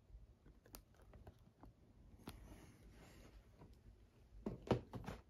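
Small boxes being handled on a cloth-covered table: light clicks and a soft rustle, then a short cluster of knocks near the end as a box is set down among the others.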